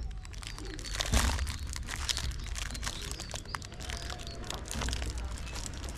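Crinkling and rustling with scattered small clicks and a knock about a second in, over a steady low rumble.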